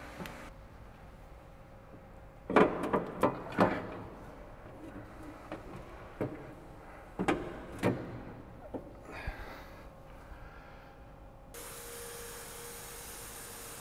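Metal knocks and clunks as a steel sway bar is worked into place through the front wheel well of a Mustang: a quick run of four sharp knocks a few seconds in, then scattered single knocks. A steady hiss with a low hum follows near the end.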